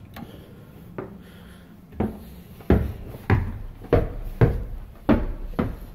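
Footsteps climbing bare wooden stairs: about seven heavy, hollow thuds, roughly one every two thirds of a second, starting about two seconds in.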